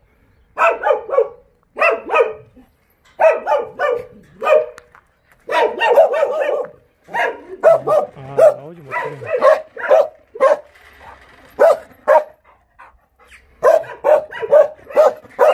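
Jindo dogs barking over and over in quick runs of several barks, with short gaps between the runs.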